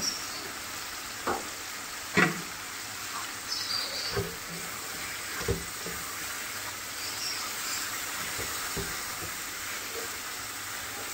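Keema and tomato masala sizzling steadily in a frying pan on a gas flame while a spatula stirs it, with a few short knocks of the spatula against the pan in the first half.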